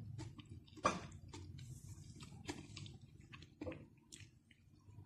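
Someone chewing food: soft irregular wet clicks and smacks, the loudest about a second in.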